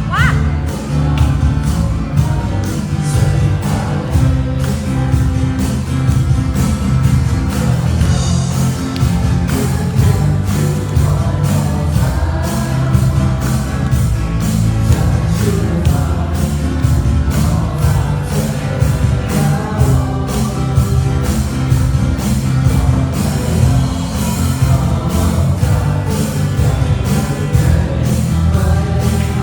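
A worship song: singing over a band with a steady beat and heavy bass.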